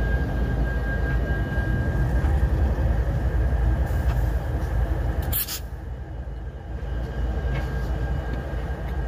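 Three CN diesel-electric locomotives (a C44-9W, an ES44DC and an SD70I) rumble past as they pull away over a level crossing, with a faint steady high tone over the engines early on. A sharp crackle comes about halfway through, after which the rumble is quieter.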